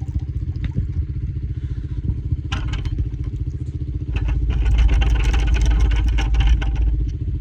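Four-wheeler (ATV) engine running steadily, with a fast, even pulse. About four seconds in it grows louder for around three seconds, with a rushing noise over it, then settles back.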